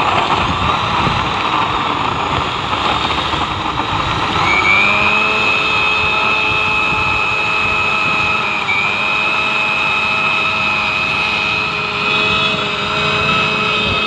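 Electric mixer-grinder running at full speed, blending mango with ice and milk in its jar. A rough, noisy churn gives way about four seconds in to a steady high motor whine, which dips briefly once about halfway through.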